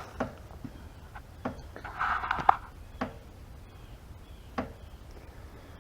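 Footsteps through brushy woods, with scattered twig snaps and a short rustle of brush about two seconds in.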